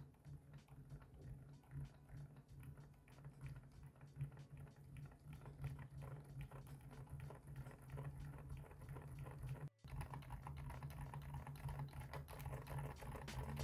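Typing on a mechanical keyboard fitted with Kailh Deep Sea switches: a fast, irregular run of faint keystroke clicks over a steady low hum, broken by a brief dropout about ten seconds in.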